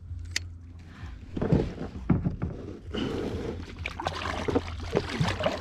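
Kayak being paddled: paddle blades dipping and splashing in the water in irregular strokes, starting about a second and a half in, after a single sharp click shortly after the start.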